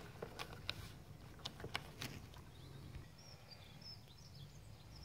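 A few light clicks and taps in the first two seconds as a rubber seal is pressed into the groove of a uPVC frame. After that come faint, short, high bird chirps over a low outdoor rumble.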